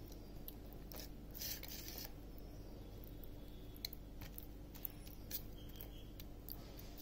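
Hands rubbing masala paste onto raw fish steaks on a steel plate: faint wet squishing and scattered light clicks of fingers and fish against the metal, with a brief scrape about a second and a half in. A steady low hum runs underneath.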